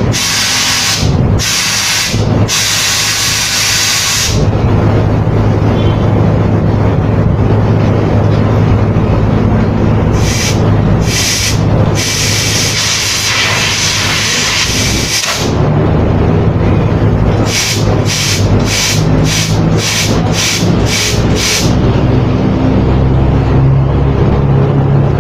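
Nitrogen from a cylinder blown through an air conditioner's copper refrigerant tubing to flush out debris: a loud, steady gas hiss, let out in repeated blasts, with a quick run of about eight short blasts, roughly two a second, near the end.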